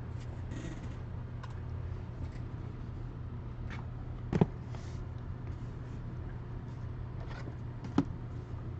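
Steady low hum with scattered light clicks and two sharp knocks, about four and eight seconds in, from trading-card boxes and packs being handled on a table.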